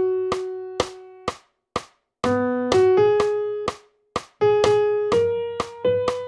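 Notation-software playback of a transcribed vocal melody in a piano-like sound, each note decaying, over a metronome clicking about twice a second. A phrase ends just over a second in, and after a short gap with only the clicks a new phrase begins.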